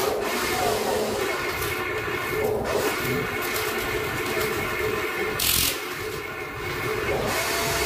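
Electric motors of a radio-controlled Huina excavator whining steadily as the boom and bucket move, with a short hissing scrape about five and a half seconds in as the bucket digs into sand.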